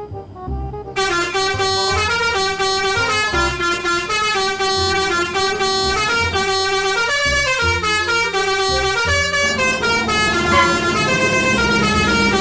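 Basuri telolet bus horn playing a tune: a loud multi-tone air horn stepping from note to note, starting about a second in.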